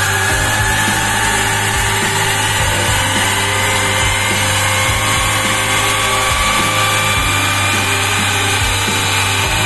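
Small steam turbine driving a belt-coupled homemade DC generator as it runs up to speed after the steam valve is opened: a steady rush of steam under a steady hum, with a whine that rises slowly in pitch as the turbine speeds up.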